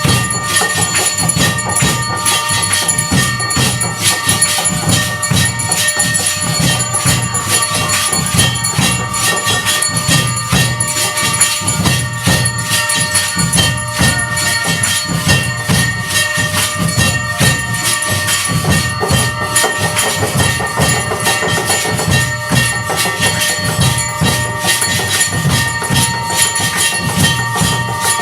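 Aarti percussion: bells and metal percussion clanging rapidly and without a break over a steady low drumbeat, with several bell tones ringing on.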